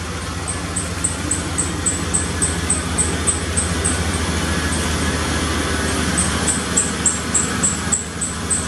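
A 1994 Chevrolet K2500 pickup's engine running at low speed as the truck creeps forward, a steady low rumble that grows louder as it comes close.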